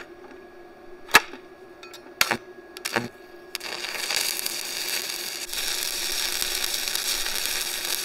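Stick welding arc from a Tooliom TL-200T welder at about 100 amps. A few sharp clicks come in the first three seconds, then from about three and a half seconds in the arc burns with a steady hiss.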